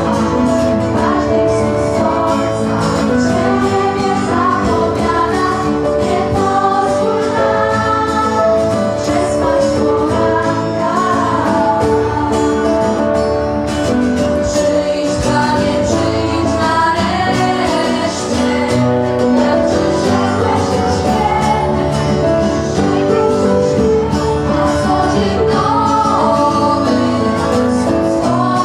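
A group of young singers performing a song into microphones, with instrumental accompaniment.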